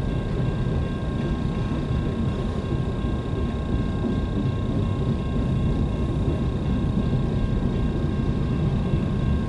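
Steady low vehicle rumble heard from inside a car, even throughout with no sudden events.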